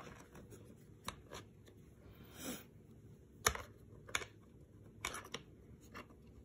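Scattered small clicks and light rustles of a plastic accessory rail and its screw being handled and pressed against a helmet shell while fitted by hand, with one sharper click about midway.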